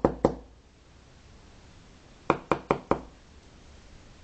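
Small LED board rapped against a tabletop in quick runs of knocks: two knocks at the start, then four in fast succession about two seconds in.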